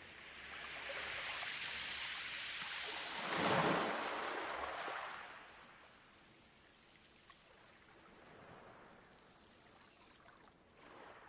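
Light waves washing onto a pebble beach: one wave swells, peaks about three and a half seconds in and drains away, followed by a quieter lull and a small wash near the end.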